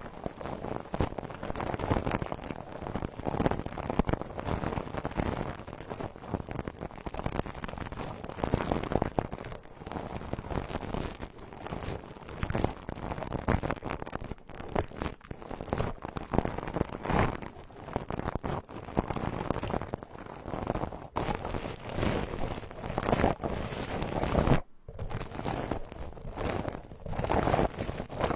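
Brush bristles rubbing and sweeping over a binaural ASMR microphone: dense, crackly scratching that stops briefly near the end.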